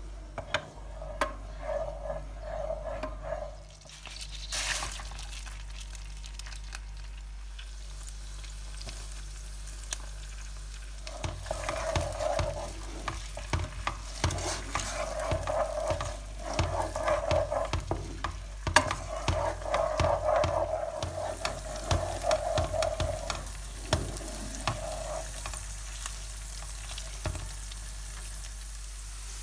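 Food frying in a pan while it is stirred and scraped with a utensil, in rhythmic spells of scraping with small clicks, with a quieter stretch of plain cooking noise in between.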